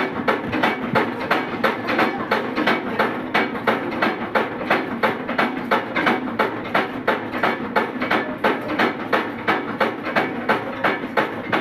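Village mill machinery running with a steady, even knocking, about four knocks a second.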